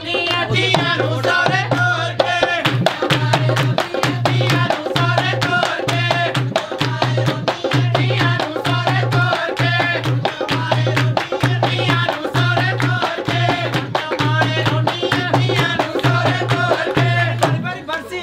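Punjabi folk song: women singing together with hand clapping over a steady, even drum beat.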